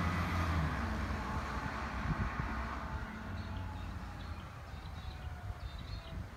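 Garbage truck's diesel engine pulling away, its low hum dropping about a second in and the sound fading steadily as the truck moves off. A few faint high chirps come in over the second half.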